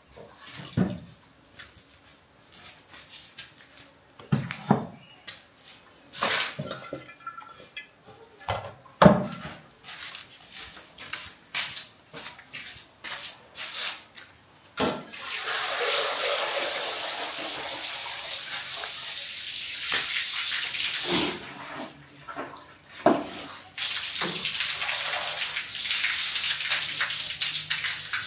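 Water being poured and splashed. Scattered knocks and splashes of handling in the first half, then a steady pour from about halfway for several seconds, a short break, and pouring again near the end.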